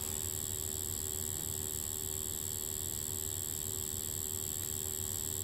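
Steady electrical hum with a faint high whine from a high-voltage rig passing current through magnetite black sand, which glows along a conductive track.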